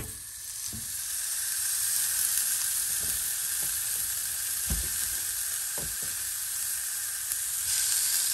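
Raw pork steaks sizzling on a hot, salted cast-aluminium nonstick grill pan (Cecotec Polka Excellence Grill 28 Force). The sizzle starts sharply as the first steak is laid down and builds over a couple of seconds. It turns louder near the end as the second steak goes in, and a few soft knocks come from the meat being handled.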